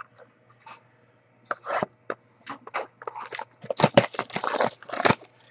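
Trading cards and their packaging being handled: a string of short rustles, scrapes and crinkles, busiest about four to five seconds in.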